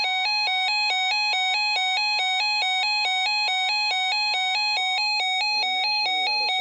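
Electronic weather-alert tone switching between two pitches a few times a second, with a steady higher tone underneath that stops about five seconds in.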